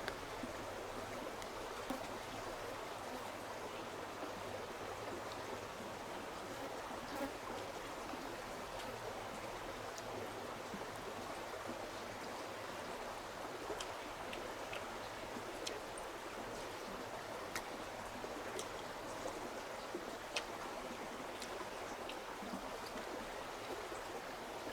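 Stream water flowing steadily, with a few faint clicks over it.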